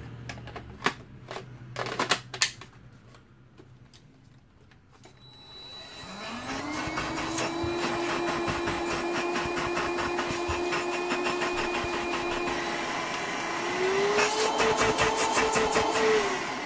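A few sharp clicks, then the Hoover Discovery Pets DS22PTG1 cordless vacuum cleaner's motor switched on: it spins up to a steady whine about 6 seconds in. Its pitch steps up a notch near the end, and it starts winding down just before the end.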